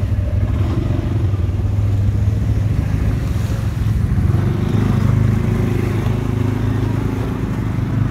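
CFMOTO CFORCE ATV engine running steadily while riding on an off-road trail.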